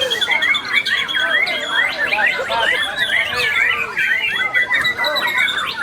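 White-rumped shamas singing, a dense run of rapid whistles, trills and chatter from several birds overlapping without a break.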